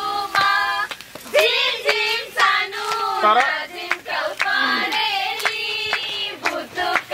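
A group of people singing together, with hand claps keeping time at about two claps a second.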